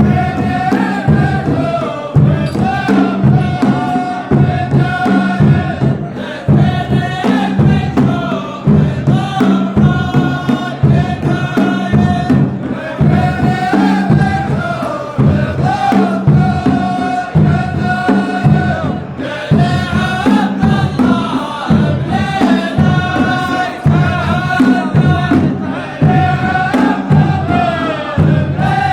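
Music: voices chanting a melody in unison over a steady beat.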